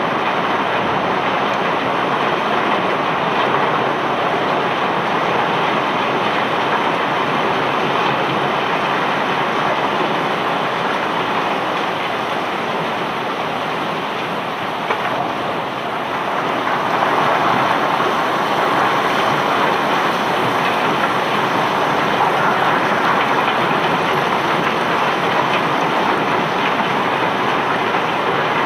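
Cobblestones pouring out of a barge hold in a steady rattling rush, easing slightly about halfway through and then picking up again, with rain falling.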